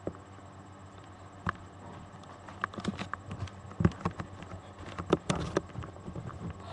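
Handling noise as a webcam computer is picked up and carried: irregular knocks and clicks, the loudest about four and five seconds in.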